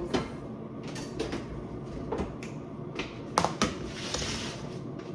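Kitchen handling sounds: scattered light knocks and clicks of dishes and utensils being moved, with a brief hiss about four seconds in.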